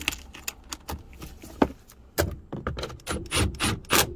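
Irregular metallic clicks and knocks of a socket and cordless impact wrench being handled and fitted onto a rear strut's upper mount nut, louder in the second half.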